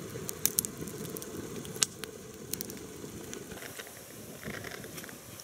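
Campfire of sticks and dry grass crackling, with sharp pops over a steady low rush. The pops thin out after about two seconds.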